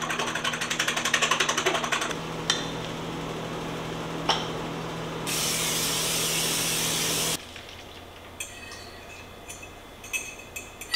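A fork beating eggs in a small bowl, rapid clicking, for the first two seconds. About five seconds in, an aerosol can of cooking spray hisses steadily into the frying pan for about two seconds. Light clinks and scrapes follow as the eggs go into the pan.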